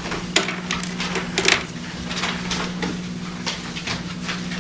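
Paper rustling and shuffling as sheets are handled and pages turned, with scattered light knocks, over a steady low hum.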